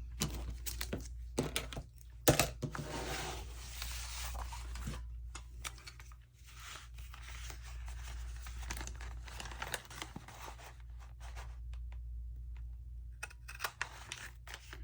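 Paper being cut with scissors to make a thumb notch in a journal page: a few clicks and a sharp snap at first, then long rasping stretches of cutting and paper handling.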